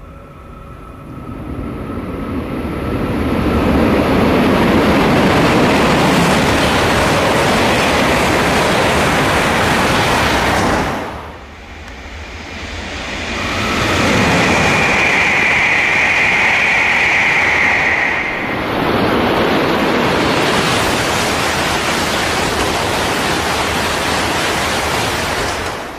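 Shinkansen bullet trains passing through a station at full speed without stopping, twice: a loud rush of air and wheels swells over a few seconds and holds, drops away briefly, then swells again for the second train. A high steady tone rides on the second pass for a few seconds, and the sound cuts off at the end.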